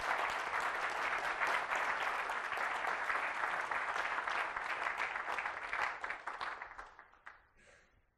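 Audience applauding: dense clapping that thins out and dies away about seven seconds in, with a few last claps near the end.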